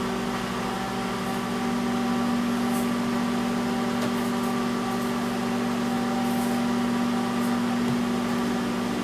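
Microwave oven running, a steady electrical hum from its transformer and fan with a few faint ticks, heating a piece of dry ice.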